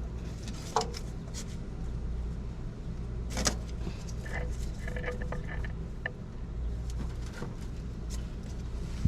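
Metal clicks and clinks of a self-adjusting oil filter wrench gripping and turning a motorhome's oil filter to loosen it, the loudest about three and a half seconds in, with brief squeaks a little later. A steady low rumble runs underneath.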